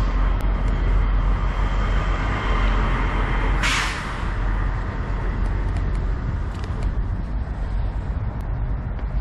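Diesel semi-truck engine idling low and steady, with a short burst of air-brake hiss about three and a half seconds in.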